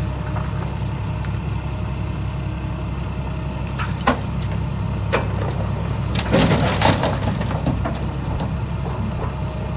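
Heavy construction machinery running with a steady low diesel rumble, with a few sharp knocks and a short stretch of crunching about two thirds of the way in, as of material being scraped or dumped.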